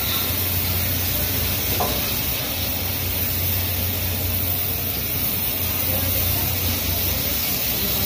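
Oxy-fuel gas cutting torch on a chain-mounted pipe bevelling machine, its flame and cutting jet hissing steadily as it cuts a bevel around the pipe, with a steady low hum underneath.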